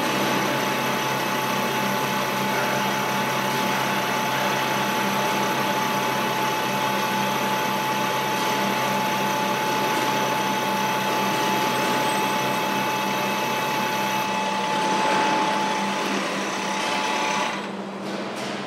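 X50 slant-bed CNC lathe machining concentric grooves into the face of a metal disc with a powered tool on its turret: a steady machining noise with a high, steady whine. The whine and cutting noise stop about a second before the end.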